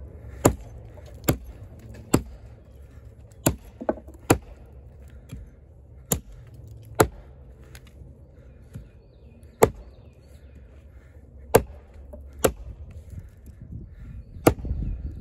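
Kobalt 14-inch camp axe with a hickory handle chopping into a log: about a dozen sharp strikes at uneven intervals, roughly one a second, the blade biting into the wood.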